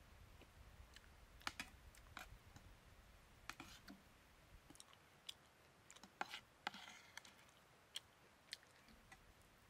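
Faint, irregular light clicks and taps, about ten of them scattered through, over quiet background.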